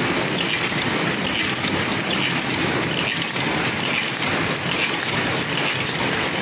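Paper cup forming machine running: a steady mechanical clatter with clinking that repeats in a regular rhythm as cups are formed and moved along.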